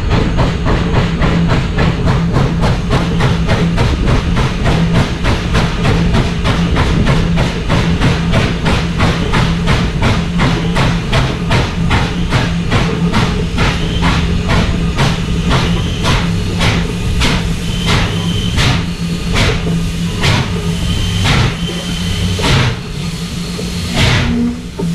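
Norfolk & Western 611, a class J 4-8-4 steam locomotive, working under way: its stack exhaust makes an even, rapid beat of chuffs ("stack talk") over a steady low hum. In the second half the chuffs come slower and more distinct, about two a second.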